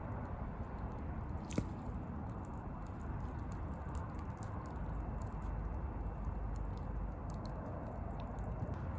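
Wood campfire crackling: scattered sharp pops over a steady low rush, with one louder pop about a second and a half in.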